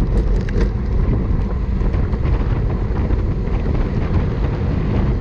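Wind buffeting the microphone of a bike-mounted camera at about 25 mph in a racing pack: a loud, steady low rumble, with a few faint ticks above it.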